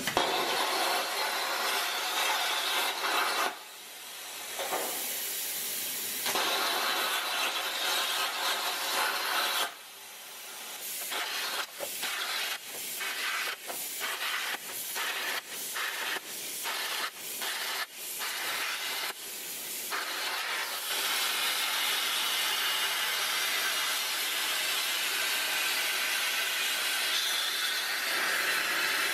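Eastwood Versa-Cut 40 plasma cutter torch cutting sheet metal at 27 amps and 30 psi air: a loud rushing hiss of arc and air. In the middle stretch the arc cuts off and restarts about once a second for a series of short cuts, between longer unbroken cuts.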